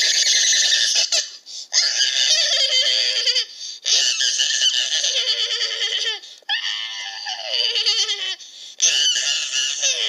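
High-pitched, squeaky voice-like sounds in five bursts, each gliding down in pitch.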